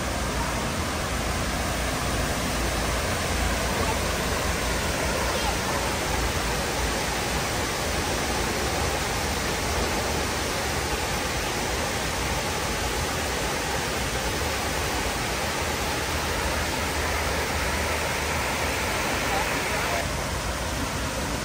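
Steady rush of falling water from the 9/11 Memorial's South Pool waterfall, a 30-foot drop into the pool.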